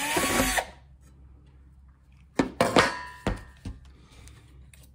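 Cordless drill running a pilot bit through a galvanized steel plate in short bursts: one right at the start, and another about two and a half seconds in, with a few sharp knocks.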